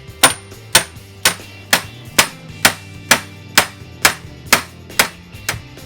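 Hammer blows on a welded steel bar being bent into a hoop, a steady rhythm of about a dozen sharp metallic strikes, roughly two a second, as the curve is beaten round and flush.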